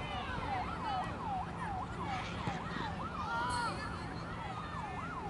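An electronic siren in a fast rising-and-falling yelp, about two sweeps a second.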